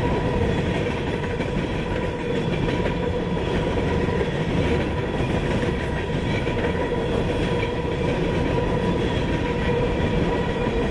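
Empty Union Pacific coal cars rolling past at speed: a steady, loud rumble of steel wheels on the rails, with a steady high ringing tone running through it.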